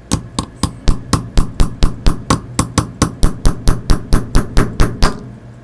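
Hammer tapping repeatedly on a punch, about four even taps a second, stopping suddenly about five seconds in. The taps are driving the roller table off a pocket watch's balance staff.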